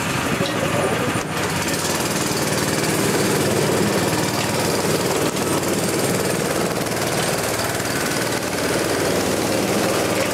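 Go-kart engines running steadily with a fast, rattling beat as the karts drive around the track.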